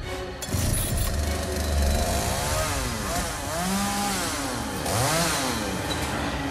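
Chainsaw engine running and revved up and down several times, its pitch rising and falling in repeated swoops.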